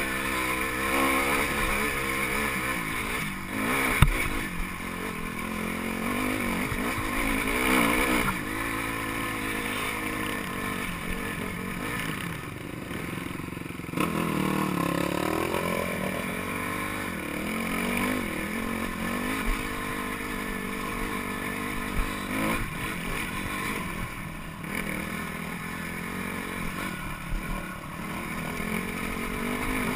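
Dirt bike engine running at low speed over a rocky trail, its revs rising and falling with the throttle, with a few sharp knocks and some clatter from rocks under the wheels.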